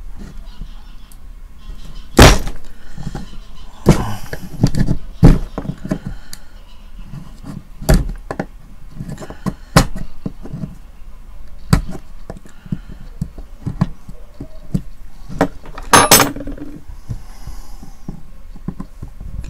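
Small screwdriver clicking, scraping and knocking against the plastic housing of a digital TV antenna, in irregular taps with several sharper knocks.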